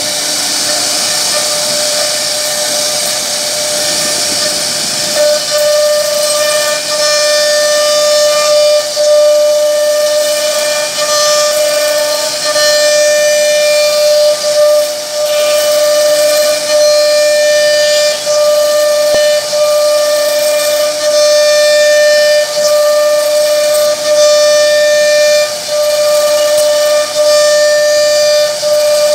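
CNC router spindle running with a steady high whine while its bit carves relief patterns into a wooden door panel, with a hiss of cutting. The level dips briefly every second or two as the cutter works.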